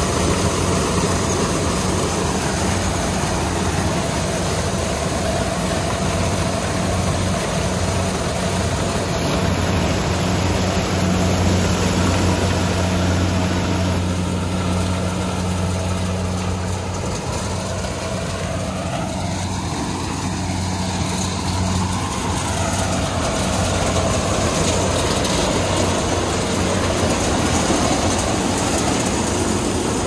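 Kubota DC-70 Plus combine harvester running steadily as it harvests standing corn: a steady, loud hum of its diesel engine and working machinery.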